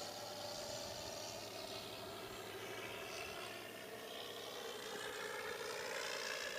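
Simulated piston aircraft engine sound from a Mr RC Sound unit aboard a radio-controlled model plane in flight. The engine note sinks in pitch over the first few seconds, then rises again near the end.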